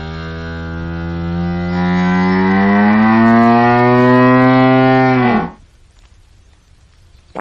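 Hippopotamus giving one long, deep call as it yawns. The pitch holds steady, rises a little, then drops and stops about five and a half seconds in.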